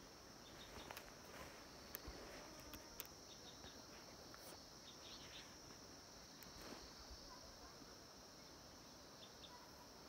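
Near silence: a faint, steady high-pitched insect chirring, with a few faint scattered ticks.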